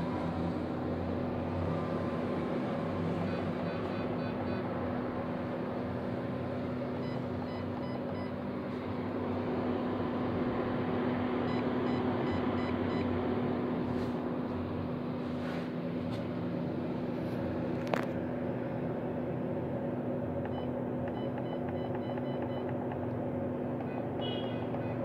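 Olympus CLV-180 endoscope light source running with its lamp lit: a steady cooling-fan whir with a constant hum. One sharp click about two-thirds of the way through.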